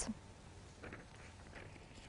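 Near silence: faint studio room tone in a pause in the narration, with a couple of very faint soft ticks about a second in and again shortly after.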